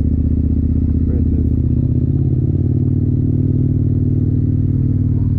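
KTM motorcycle engine running steadily while riding, at an even pitch.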